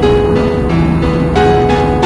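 Background music: a slow melody of held notes that change every few tenths of a second.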